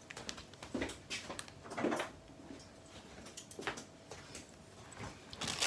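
Faint footsteps and a few soft knocks from a person moving about the room.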